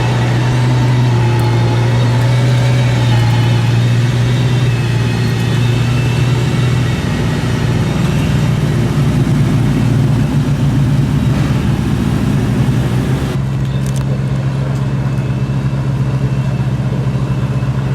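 A hypercar engine running at low revs with a steady low note that wavers in the middle. About thirteen seconds in the sound cuts suddenly to another steady engine note.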